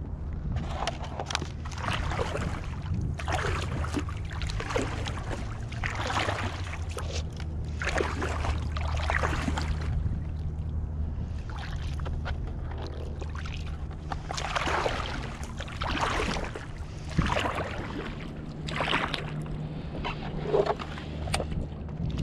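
Hand paddling a surfboard: an arm stroking through seawater beside the board, making a splash and slosh every second or two, with a pause in the strokes about halfway through. A steady low rumble runs underneath.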